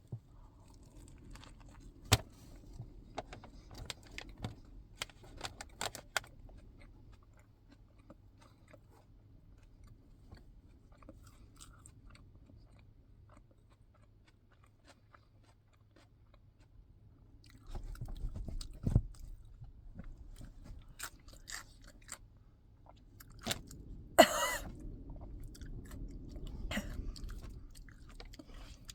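A person chewing and biting into a sandwich close to the microphone, in bouts with a long pause in the middle. A brief high-pitched cry near the end is the loudest sound.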